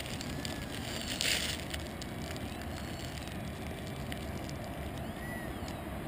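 Radio-controlled ekranoplan model taxiing on the water, its twin motors giving a faint, wavering whine over a steady rushing noise. A short burst of hiss about a second in.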